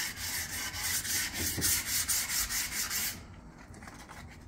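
Sandpaper rubbed by hand in quick back-and-forth strokes along a wooden axe handle, stopping about three seconds in.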